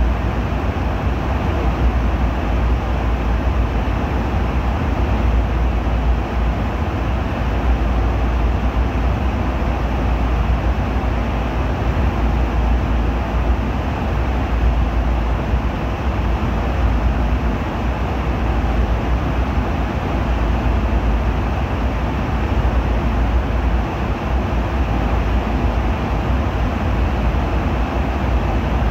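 Airliner cabin noise in flight: the steady rumble of the jet engines and airflow, heaviest in the deep bass and unchanging throughout.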